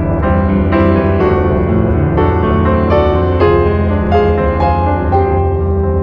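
Background music led by piano: a gentle melody of single notes struck every half second or so over sustained chords.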